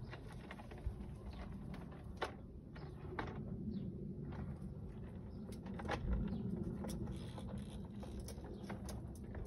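Gardena Sileno City robotic lawn mower driving, a low steady hum with scattered light clicks and knocks.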